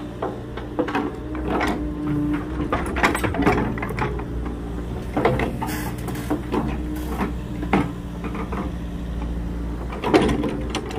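Mini excavator's diesel engine idling steadily, with irregular clicks and knocks over it.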